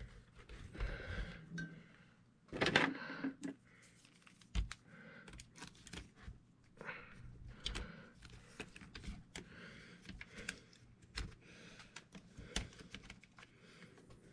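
Irregular small clicks and taps of hard plastic and metal RC truck suspension parts being handled and worked on by hand, with a louder clatter about three seconds in.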